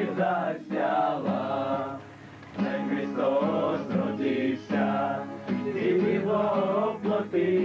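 A group of carolers singing a Slavic Christmas carol (koliadka) together, accompanied by strummed acoustic guitar, with a short break between sung lines about two seconds in.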